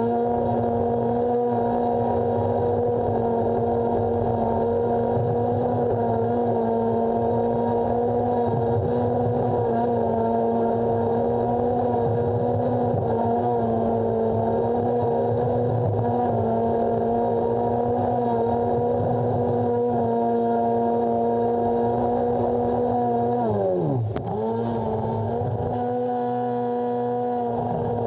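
Craftsman garden tractor's engine running steadily at an even pitch while it pushes snow with its front plow blade. About 24 s in, the pitch dips sharply and recovers within a second.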